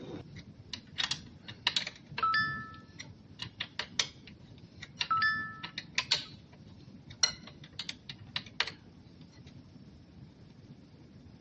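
Irregular sharp clicks and light knocks, with two short high squeaks about two and five seconds in; the clicking stops near the end.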